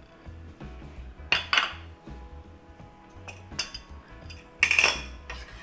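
Several sharp clinks and knocks of a steel chef's knife and small ceramic bowls being set down and shifted on a wooden cutting board and stone counter, the loudest clatter near the end.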